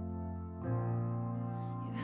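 Slow worship song on keyboard: sustained chords held between sung lines, moving to a new chord about two-thirds of a second in, with a woman's voice coming back in right at the end.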